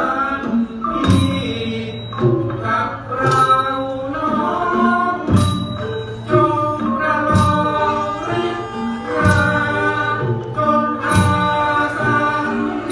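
Thai classical ensemble music: a busy pitched melody over a heavy drum stroke about every two seconds.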